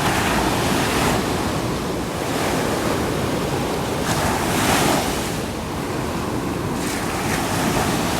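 Ocean surf breaking and washing up the beach, swelling and easing several times, loudest about halfway through, with wind buffeting the microphone.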